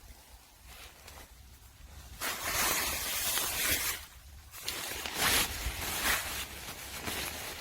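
A pop-up tent being handled: fabric rustling in two long stretches, the first starting about two seconds in, with a short lull just after four seconds.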